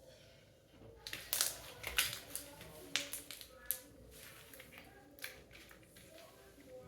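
Homemade slime being squished and pulled by hand, giving a run of irregular sticky clicks and pops that start about a second in.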